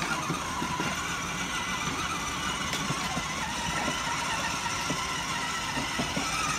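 Steady whir of a children's battery-powered ride-on toy car's electric motor as it drives, its wheels rolling on concrete.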